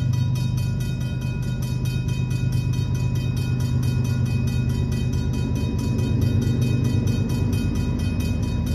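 A Griswold/RACO mechanical crossing bell rings in rapid, steady strokes. Under it is the low rumble of an approaching freight train's diesel locomotives.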